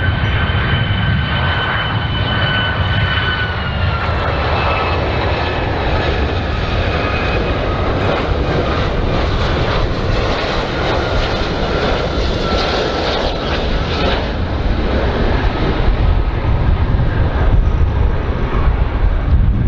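Boeing 757 jet airliner flying low on landing approach, its two engines making a steady roar. A high whine over the roar steps down a little in pitch a few seconds in and fades out at about fourteen seconds.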